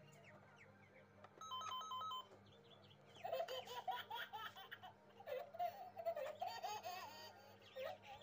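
A person laughing in many short laughs through the second half, after a brief electronic ringing tone of stepped beeps a little past a second in.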